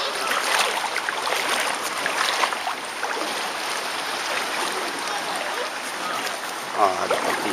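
Seawater sloshing and lapping right at the microphone of a camera held at the water's surface, with close gurgles and small splashes. A brief pitched sound comes in near the end.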